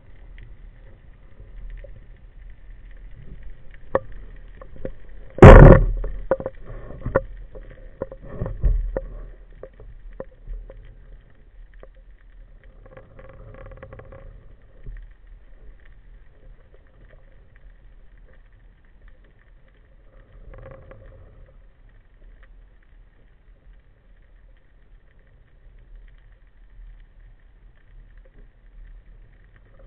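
Underwater sound picked up through a camera's waterproof housing: a low steady rumble with scattered clicks and knocks. The loudest is one sharp knock about five and a half seconds in, with a few more over the next few seconds.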